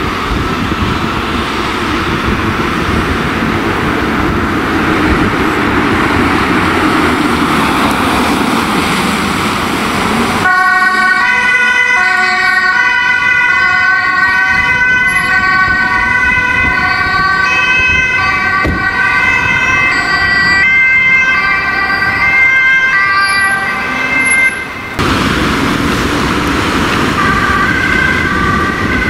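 For about ten seconds, the rushing road noise of a vehicle driving past. Then, after a sudden change, a Dutch ambulance's two-tone siren sounds, its tones stepping up and down.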